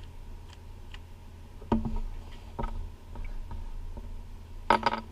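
A YJ Guanlong 3x3 speedcube being turned by hand: irregular sharp plastic clicks as its layers snap round, with a quick loud cluster of clicks near the end.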